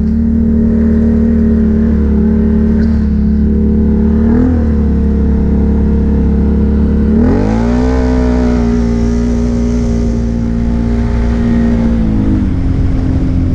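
ATV engine running at steady throttle, with a brief blip about four seconds in, then revving up to a higher, steady pitch about seven seconds in and easing back down near the end.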